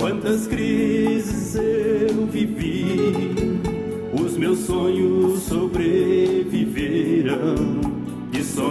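Gospel song: a singer over instrumental backing.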